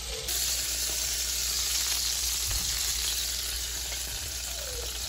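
Skin-on wood duck breast frying in browned butter in a pan on the stove: a steady sizzle.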